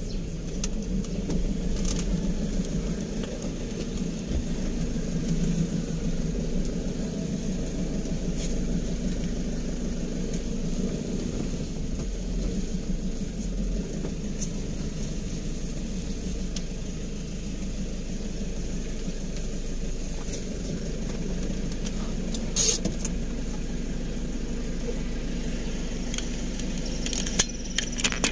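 Car engine running steadily at low speed, heard from inside the cabin as a low hum. There is a single sharp click about three-quarters of the way through and a few smaller clicks near the end.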